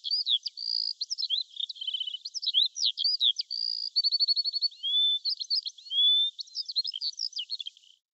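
A songbird singing a fast, varied run of chirps, quick trills and short sliding whistles, all high-pitched.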